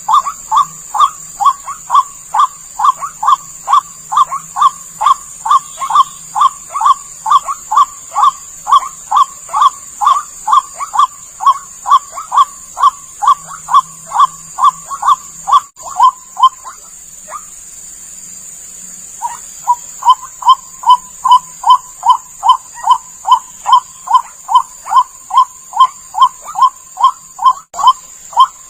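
White-breasted waterhen (ruak-ruak) call used as a bird lure: a fast, even run of loud 'ruak' notes, about three a second. The run breaks off for about three seconds past the middle and then starts again. A steady high hiss runs underneath.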